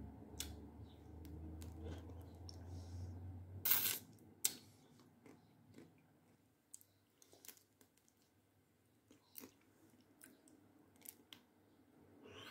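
Close-miked eating of a chocolate-coated Magnum ice cream bar: two loud crackles of biting into the chocolate shell come a little under four seconds in, then softer chewing with scattered wet mouth clicks and smacks.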